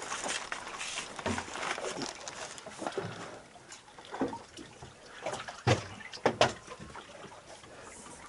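Scattered knocks, clicks and rustling of gear being handled on a fibreglass boat, over a light wash of water. Two sharp knocks a little past the middle are the loudest.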